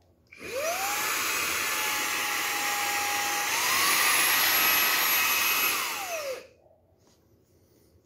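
Xiaomi Mi Vacuum Cleaner Mini handheld vacuum switched on: its motor whines up to speed with a rush of air and runs steadily. About halfway it steps up to a higher, louder speed, then it is switched off and winds down to a stop about six seconds in.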